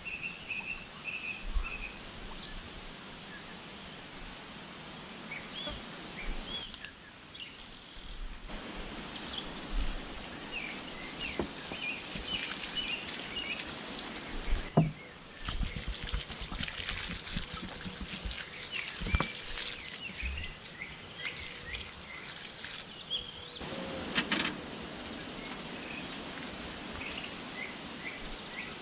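Small birds chirping and twittering throughout, over outdoor background noise, with scattered scrapes and a few sharp knocks of a hand trowel working soil; the loudest knock comes about halfway.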